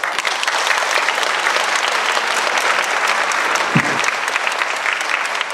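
Audience applauding steadily at the end of a stage dance performance, with one brief low sound about four seconds in.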